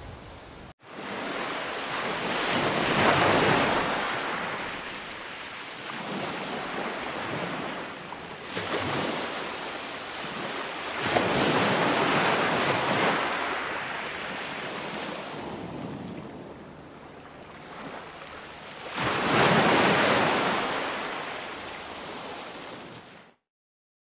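A brief steady hiss cuts off abruptly, then small sea waves break and wash up a sandy shore, swelling and falling away about four times. The sound cuts out suddenly near the end.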